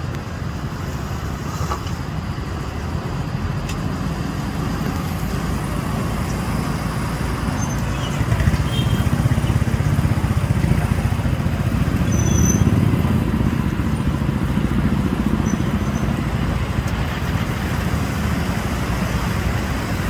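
Motor vehicle engines running with a steady low rumble that grows louder about eight seconds in and eases off again after about fourteen seconds.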